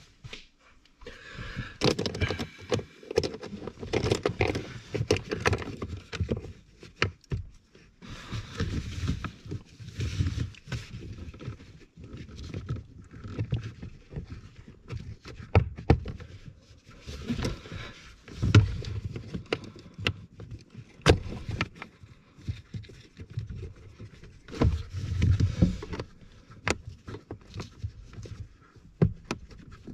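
Irregular clicks, knocks and rustling of hand work on hose clamps, fitted onto the heater core's coolant hoses.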